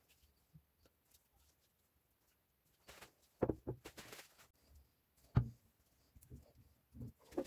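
Near silence, then a few scattered knocks and clunks, one of them sharp, as the metal breast drill body is handled, set down and fitted into a bench vise.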